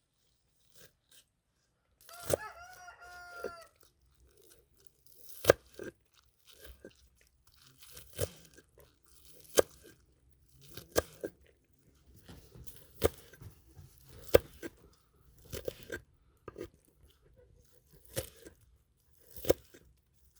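Sharp crunching knocks, one about every second and a half, with a short chicken call about two seconds in.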